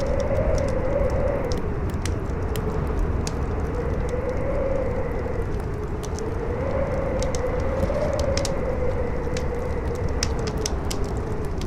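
Howling wind, its moaning tone rising and falling in slow swells every few seconds over a steady rush, with a fire crackling in small, irregular pops throughout.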